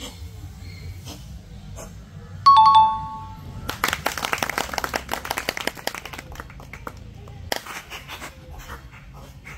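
A two-tone ding-dong chime, like a doorbell sound effect, rings about two and a half seconds in. A dense patter of small clicks follows for about two seconds, over low background music.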